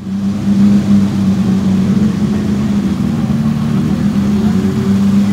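A drift car's engine idling steadily with a deep, even hum.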